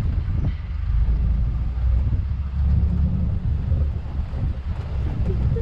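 Low, steady rumble of wind buffeting the microphone and a resort buggy moving along.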